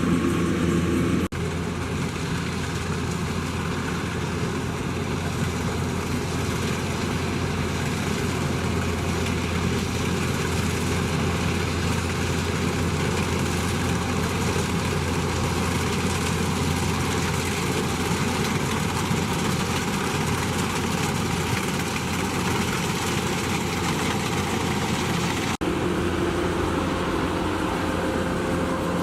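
Combine harvester running steadily, its engine and machinery making a continuous low mechanical noise, with a brief dropout about a second in and another near the end.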